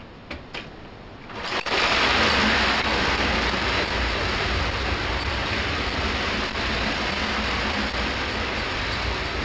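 Two light clicks, then about a second and a half in a loud, steady mechanical clatter starts: several Marx plastic-shell clockwork windup locomotives running on tinplate O gauge track.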